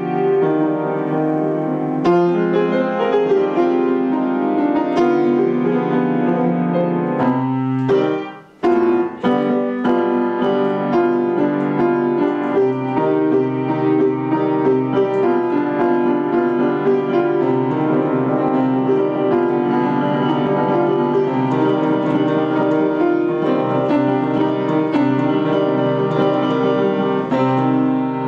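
Grand piano being played, a continuous run of chords and melody, with a brief break about eight seconds in before the playing picks up again.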